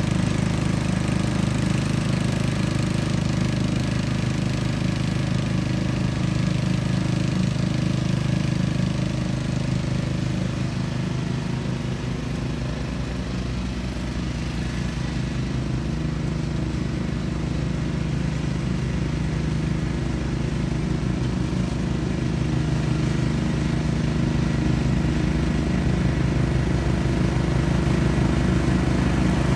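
Simplicity Coronet rear-engine riding mower running steadily while mowing, the engine note dropping a little in the middle as it moves off and growing louder again near the end as it comes back.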